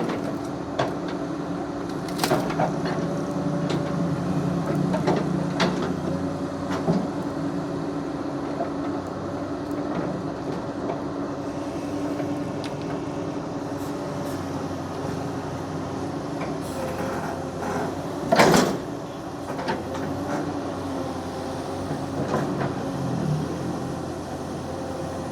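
Excavator's diesel engine running steadily while the machine works, with scattered knocks and one loud sharp knock about eighteen seconds in.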